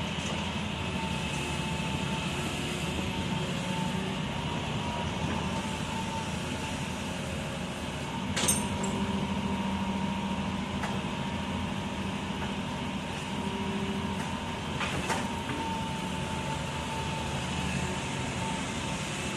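Hitachi crawler excavator's diesel engine running steadily under work, with a steady whine over the engine note. Two sharp knocks, the louder about eight seconds in and another near fifteen seconds.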